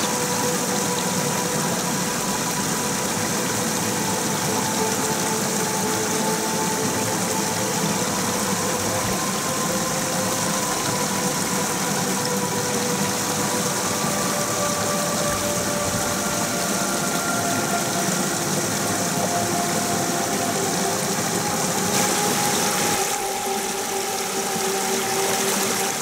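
Small rocky stream running, water spilling over a low cascade between boulders into a pool: a steady rush with faint humming tones that slowly shift in pitch. The rush changes a few seconds before the end.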